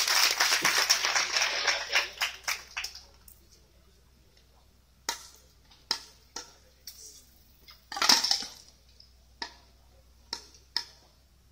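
Clapping and voices from spectators tapering off over the first few seconds. Then single sharp knocks and slaps from a drill team's rifle drill, with a louder burst of knocks about eight seconds in.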